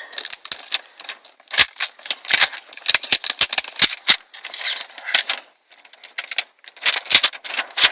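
Beyblade 2-pack retail package being handled and turned over: a dense, irregular run of plastic clicks, taps and crackles, with a few short pauses.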